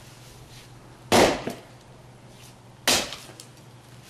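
Two sharp blows of a splitting maul driven into a hickory log on a chopping stump, a little under two seconds apart.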